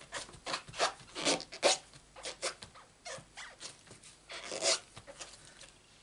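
A cloth rubbing over stamps to wipe the ink off them, in a series of short scrubbing strokes, with a longer stroke about four and a half seconds in.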